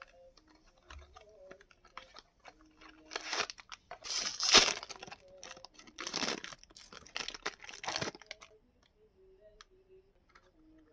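Plastic blind-box packaging crinkling and tearing as it is opened, in several bouts. The loudest bout comes about four seconds in, and it goes quiet over the last few seconds.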